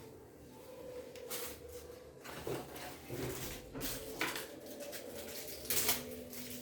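A series of short knocks and rustling handling noises, the loudest near the end, over a faint steady hum.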